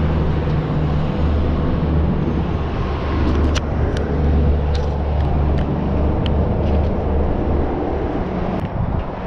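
Steady low rumble of highway traffic running over the overpass deck above, with a few light clicks scattered through it.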